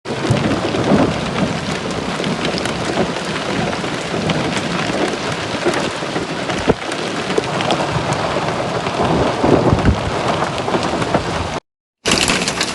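Heavy rain pouring down, a dense steady hiss peppered with sharp drop impacts, with one sharper knock about two-thirds of the way through. The sound drops out completely for a moment near the end, then the rain resumes.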